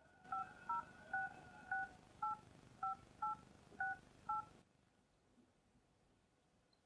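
Telephone keypad touch tones (DTMF) as a number is dialled: nine short two-tone beeps at an uneven pace over a faint hiss, stopping about four and a half seconds in.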